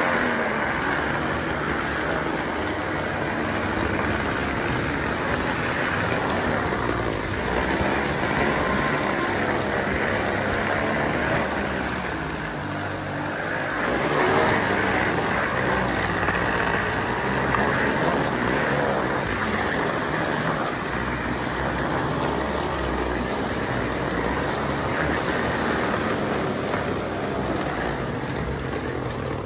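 Continuous rattling rumble of a long roller slide's narrow rollers spinning under riders sliding down it.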